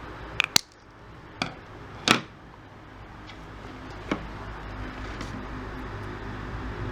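About five sharp snips and clicks of a hand tool working Cat5e wire ends for an RJ45 connector, the loudest about two seconds in, over a steady low hum.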